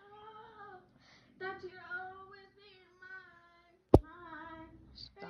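A young girl singing alone without accompaniment, in several held, wavering phrases. About four seconds in, one sharp thump, the loudest sound, as the phone recording her is knocked.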